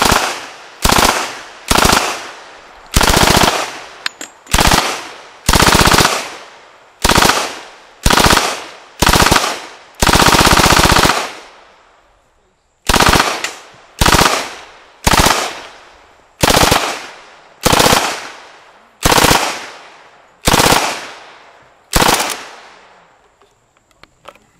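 Colt Thompson submachine gun in .45 ACP, fed from a 100-round C drum, firing full-auto in short bursts about once a second, with one longer burst of over a second near the middle. Each burst rings off in echo, and the firing stops a couple of seconds before the end.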